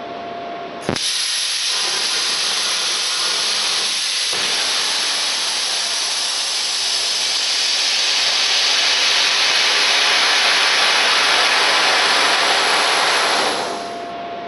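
A loud, steady hiss from a computer-controlled cutting machine at work. It starts suddenly about a second in, grows a little louder past the middle, and dies away near the end.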